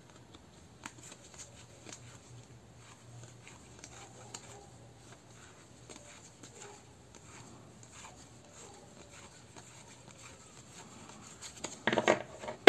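Tarot cards being handled and looked through: faint scattered taps and papery slides, louder near the end.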